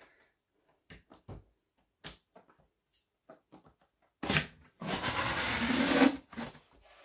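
Fingers scratching and tapping at the tucked-in end flap of a cardboard box, then the flap is pulled open with a scraping rustle of cardboard lasting about a second and a half, about two thirds of the way in.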